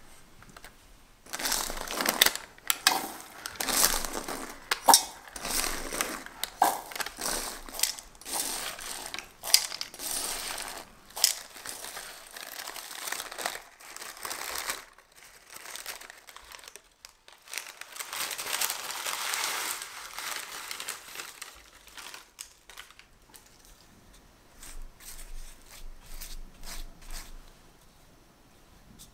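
Parchment baking paper crinkling and dried red beans rattling as the bean-filled liner used for pie weights is lifted out of a blind-baked tart shell. The crackling and rattling are densest through the first half, with a rustling swell past the middle and only a few light clicks near the end.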